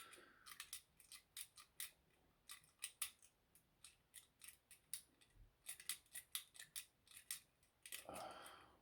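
Faint, irregular metallic clicking and scraping of lock picks working the levers of a lever lock, coming in small clusters and densest in the second half.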